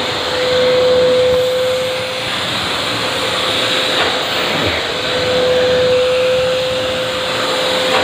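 Wet-and-dry vacuum cleaner running steadily while cleaning a fabric surface, with a high whine that drops away for a few seconds in the middle and comes back.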